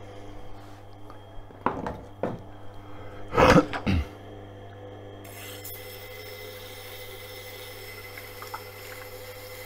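Tormek sharpening machine running with a steady hum while a clamped kitchen knife is changed on the metal support bar, with several sharp metal clatters over the first four seconds, the loudest about three and a half seconds in. About five seconds in, the steady hiss of the knife edge grinding on the 1000-grit CBN wheel starts.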